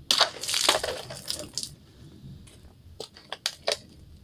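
A kitchen knife slashing through a plastic water bottle: a loud crunch of plastic with water splashing out, lasting a second and a half. It is followed by several light, sharp clicks.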